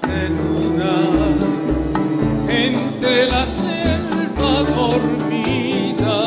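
Live bolero music: acoustic guitars and bass playing, with singing over them.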